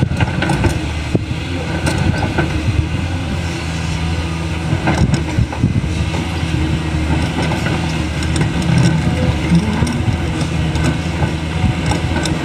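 Caterpillar crawler excavator's diesel engine running steadily, with a few short knocks.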